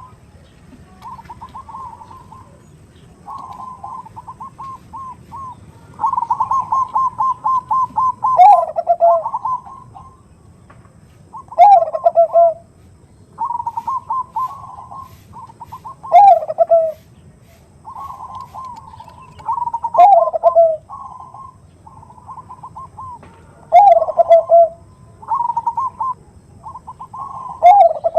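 Zebra doves of the Bangkok strain (perkutut bangkok) singing: phrases of quick staccato coos, each ending in a louder, lower coo that falls in pitch, repeating about every four seconds.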